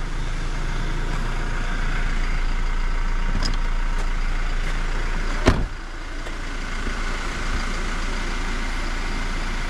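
Car running, heard from inside the cabin as a steady noise with a low hum, and one sharp click about five and a half seconds in.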